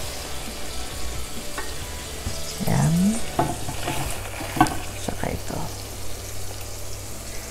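Chicken breasts sizzling steadily in butter and olive oil in a stainless steel frying pan. Around the middle, metal tongs knock and scrape against the pan a few times as the pieces are lifted.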